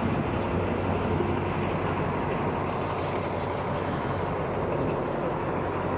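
Diesel passenger train running past: a steady rumble of engine and wheels with a low hum, holding even throughout.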